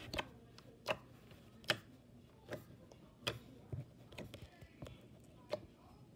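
Fingers pressing and kneading wet, clear blue slime, making small sharp clicking pops about once a second.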